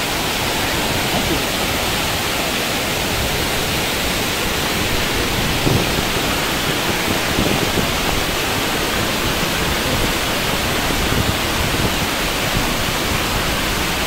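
Waterfall pouring steadily: a constant, even rush of falling water.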